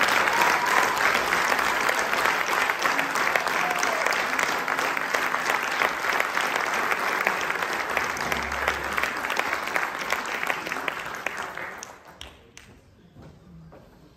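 Audience applauding, then dying away about twelve seconds in.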